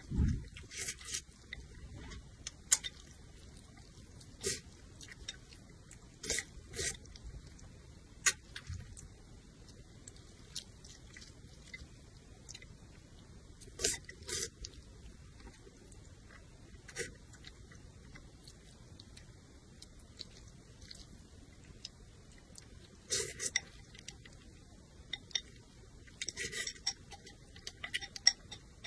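A person slurping and chewing noodles, in short irregular bursts with quiet stretches between, and a few sharp clicks.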